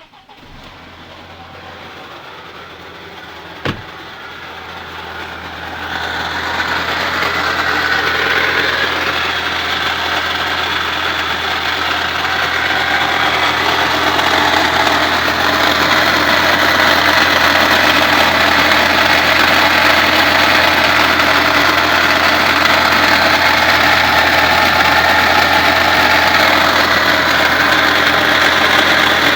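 Audi A4 1.8T four-cylinder turbo engine starting and idling, with a single sharp knock about four seconds in. A really bad noise spread across many pitches builds over the next few seconds and then holds steady over the idle: the sign of a failed, "grenaded" A/C compressor.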